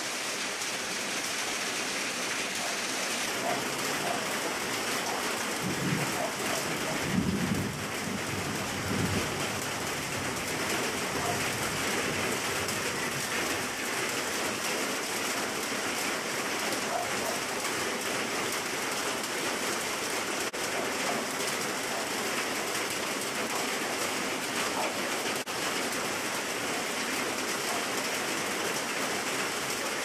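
Steady rain falling on leaves and surfaces, an even hiss of drops throughout, with a few brief low rumbles between about six and nine seconds in.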